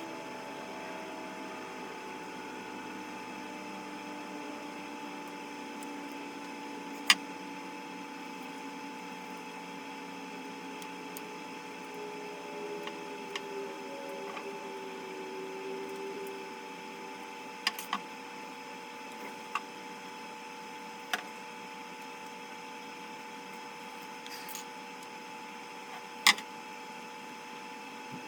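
A steady low hum with a faint wavering tone, broken by a few sharp clicks and taps.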